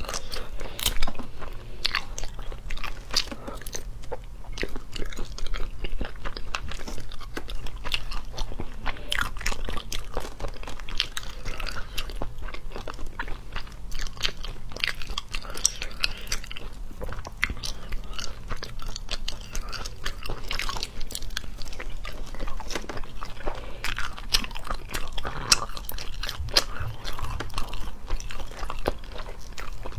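Close-up eating sounds of sea snails: wet chewing, biting and crunching with many quick mouth clicks and smacks, continuous throughout. A low steady hum runs underneath.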